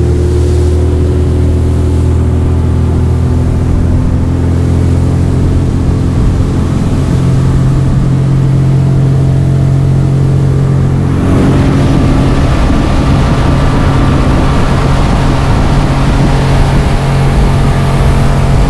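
Outboard motor of a small runabout boat running at speed, a steady engine drone. About eleven seconds in the note steps up slightly and the sound turns fuller and hissier.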